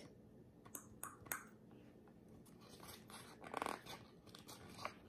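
Quiet handling of a picture book's paper page: a few light taps, then a short rustle about three and a half seconds in as the page is lifted and turned.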